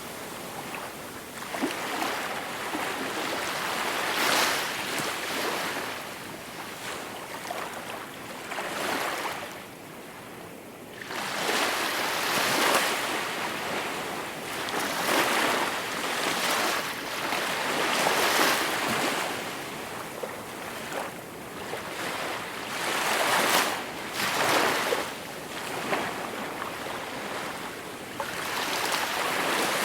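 Gentle sea waves washing onto the shore, each swell of surf hiss rising and falling away every few seconds, with a quieter lull about ten seconds in.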